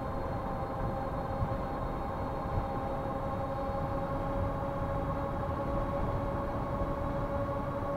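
Ariel Rider Kepler e-bike's hub motor running under power at a steady cruising speed, giving a steady whine of several pitches over a rough rumble of wind on the microphone and tyres on the road.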